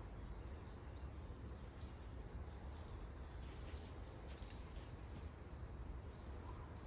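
Outdoor background noise: a steady low rumble on the microphone, with a few faint bird chirps.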